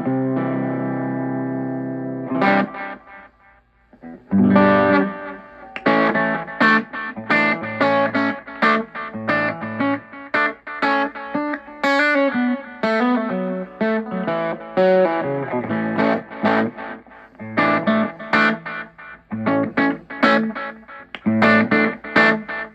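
Electric guitar played through a Kay Model 703 amp and a Watkins Copicat tape echo. A held chord rings and fades, a short strum follows, and after a brief pause about four seconds in comes a busy run of quick picked notes and chords.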